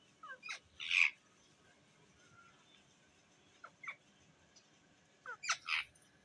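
Pet parrot calling: a quick burst of short squawks and chirps about a second in, two faint chirps near the middle, and another burst near the end.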